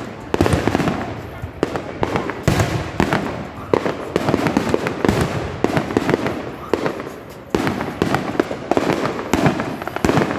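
Fireworks going off in quick succession: many sharp bangs, one after another, with no pause.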